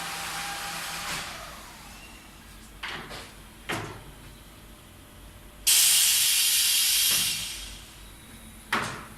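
Pneumatic machinery of a PVC window welding and corner-cleaning line: a running machine winds down, air cylinders clunk twice, then a sudden loud blast of compressed air hisses for about a second and a half and fades, followed by another clunk near the end.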